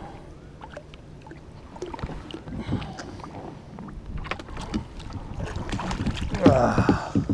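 Water and handling sounds on a fishing kayak: scattered knocks and clicks over a low wash, with a brief wavering tone about six seconds in.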